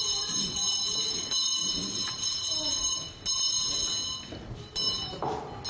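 A shrill ringing made of several steady high tones, which breaks off about three seconds in, starts again for about a second, and sounds once more briefly near the end.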